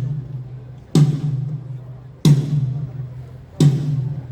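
A single drum of a drum kit struck three times, evenly about a second and a third apart, each hit ringing briefly at a low pitch: a drum being line-checked one hit at a time during a sound check.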